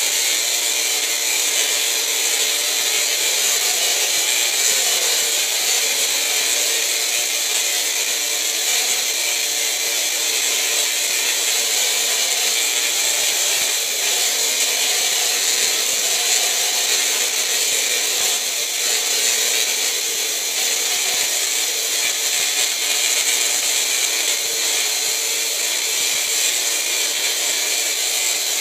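Tesla coil discharging continuously, its sparks making a steady, loud, hissing buzz.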